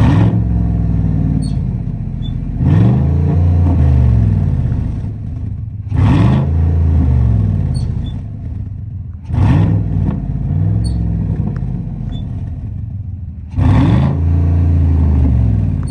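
Chevrolet Camaro 2SS's 6.2-litre V8 being blipped five times from idle, each rev climbing and falling back. This is the car's current exhaust, which the owner says sounds horrible and whose catalytic converters he says went bad.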